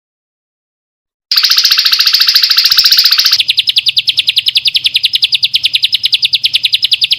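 Songbird trill: a fast, very even run of repeated high notes that starts about a second in. It is fuller and louder for the first two seconds, then goes on steady.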